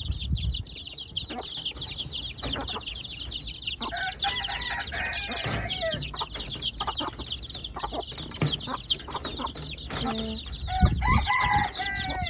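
Chickens clucking and calling, with a constant high chatter of many short cheeps and a few louder pitched calls, plus occasional low knocks.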